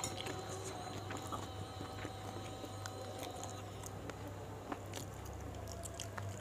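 Close-miked chewing and mouth sounds of a person eating by hand, with scattered small clicks, over a steady low hum.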